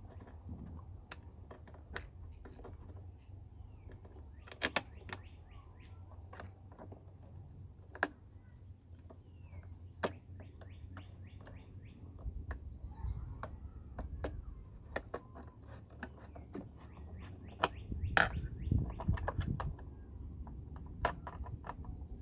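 Scattered sharp clicks and knocks of hands handling a plastic battery-pack case, with one louder knock about three-quarters of the way through. Birds chirp in the background.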